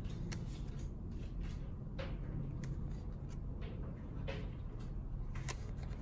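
Magic: The Gathering proxy cards being handled: cards slid out of a pile and swapped between the fingers, giving scattered light clicks and brushes over a steady low room rumble.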